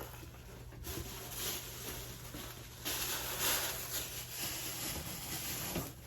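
A bag of bird seed being handled, rustling and crinkling, louder from about three seconds in.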